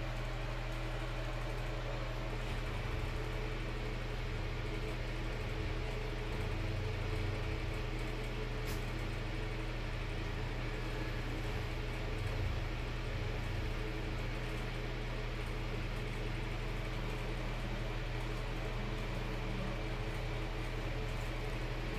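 Steady low mechanical hum of a running appliance in a small room, unchanging throughout, with one faint click about nine seconds in.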